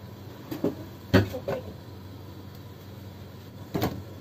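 Kitchenware clanks and knocks against a metal saucepan, then a glass lid is set onto it near the end with a short clink. A steady low hum runs under them.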